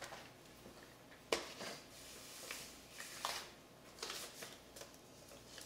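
Faint handling noises of records and paper sleeves: a sharp click just over a second in, then several short rustles.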